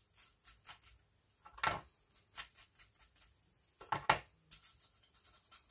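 Fingertips rubbing and dabbing wax onto a paper die-cut piece: a few short, faint scratchy rubs against paper, the clearest about two seconds in and a pair around four seconds in.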